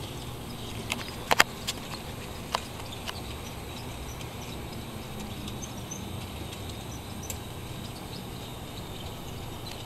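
Model trains running on a layout: a steady low hum with a few sharp clicks in the first three seconds, the loudest a pair about a second and a half in, and one more click later.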